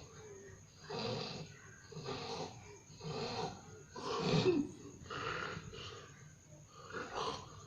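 A person snoring in their sleep, a rough snore roughly every second, the loudest about halfway through.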